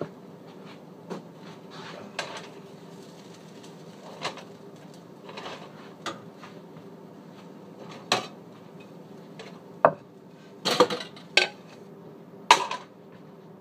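A nonstick skillet and cooking utensils clanking now and then as the finished omelet is taken off the stove, the loudest clanks close together near the end. A steady low hum runs underneath.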